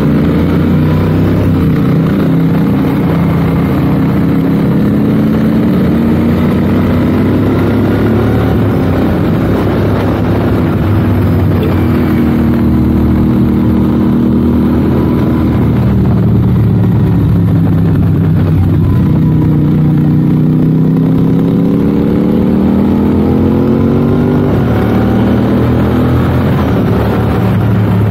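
Royal Enfield 650 parallel-twin motorcycle engine running under way, its pitch slowly rising and falling with the throttle.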